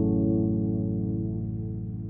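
Background music: a low, sustained chord that slowly fades.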